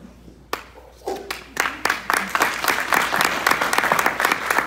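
Audience applause: many hands clapping, building about a second and a half in.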